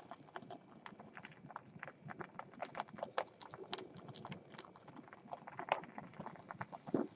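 A yogurt cup crackling and popping under a gas torch flame as its plastic wall scorches and blisters. The pops are irregular and come several times a second over a faint hiss.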